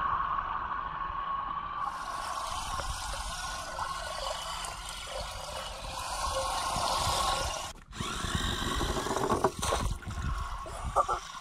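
Remote-control amphibious toy car's electric motor whining steadily as its paddle-tread wheels churn and splash through pond water, with a brief break about eight seconds in.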